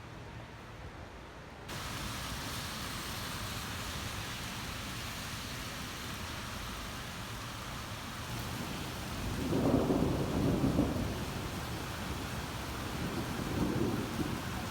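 Steady rain, its hiss starting abruptly about two seconds in, with rolling thunder rumbling about two-thirds of the way through and again near the end.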